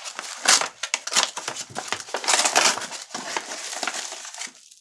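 Brown kraft paper mailer crinkling and rustling as it is opened by hand, a rapid, irregular run of crackles with the loudest bursts about half a second in and around two and a half seconds. Near the end, bubble wrap crinkles as the wrapped item is pulled out.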